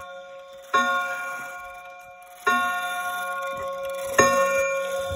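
Lincoln wall clock with a Chinese movement striking the hour on its rack-and-snail strike: three strikes about a second and three-quarters apart, each ringing on in several tones and slowly dying away.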